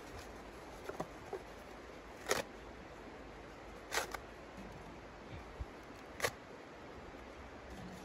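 Sharp clicks and snaps from kindling being lit and handled in the firebox of a small steel camp wood stove: a few light ticks, then three louder snaps about two seconds apart, over a low steady hiss.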